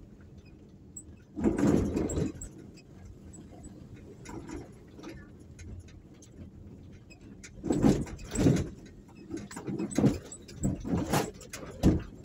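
Road and engine noise of a moving vehicle heard from on board, steady underneath, with several louder low surges: one about two seconds in and a cluster in the last third.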